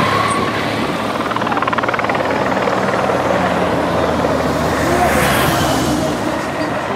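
Helicopter overhead, its rotor and engine droning steadily, mixed with the engines of race vehicles passing on the road, one swelling louder about five seconds in.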